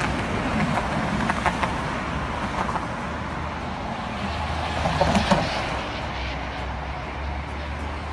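Road traffic on a city street: cars passing, with a steady engine rumble underneath and a louder swell about five seconds in.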